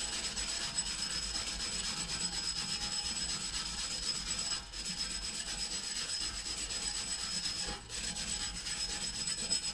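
Hand-held steel wire brush scrubbed back and forth over the rusty face of a BMW wheel hub: a steady, rapid scratching of bristles on metal, pausing briefly twice. It is cleaning off the rust and pitting on the hub face that throws off the rotor runout reading.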